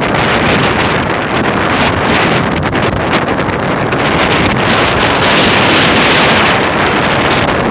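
Ocean waves and surf in a steady loud rush, with wind buffeting the microphone. The rush swells a little in the second half.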